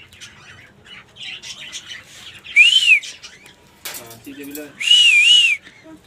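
Rose-ringed parakeets squawking: two loud, harsh screeches, the first a single rising-and-falling call about two and a half seconds in, the second a double call about five seconds in.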